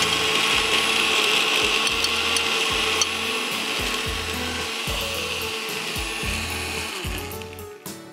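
Anex countertop blender running steadily, blending the frappuccino mix of coffee, milk and ice. The motor noise fades away near the end.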